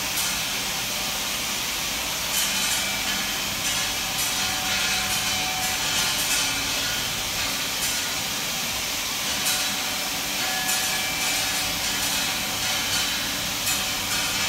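Accura TCI tablet machine running on large flat tablets: a steady mechanical hiss and hum, with short clicks every second or two.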